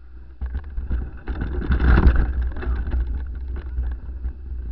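Downhill mountain bike rattling and knocking over a rough dirt trail at speed, with wind rumbling on the camera's microphone; loudest about two seconds in.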